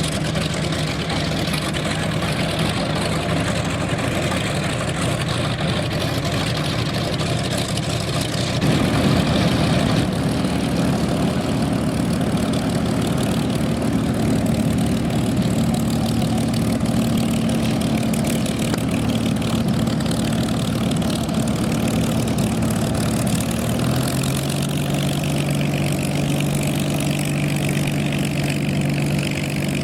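Vintage radial piston aircraft engines running at a steady speed, the engine note shifting abruptly about nine seconds in and again around 24 seconds in.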